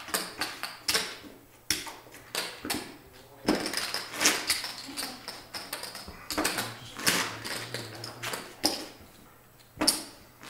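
Poker chips clicking and clacking as players stack and riffle them in their hands, in irregular quick runs, busiest about four seconds in.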